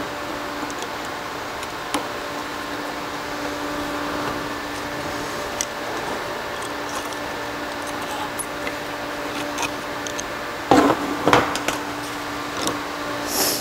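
Snap ring pliers and a screwdriver working a lock ring inside a cast transfer case, giving scattered light metallic clicks and scrapes, with a few sharper clicks about eleven seconds in. A steady hum runs underneath.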